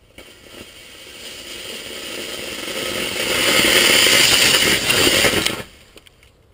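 Rocket motor strapped to a ratchet noisemaker burning with a hissing rush and a fast clattering rattle from the spinning ratchet, growing steadily louder and then cutting off abruptly about five and a half seconds in.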